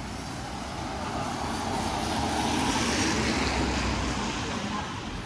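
A road vehicle passing by: a broad rush of engine and tyre noise that swells to a peak about three seconds in, then fades away.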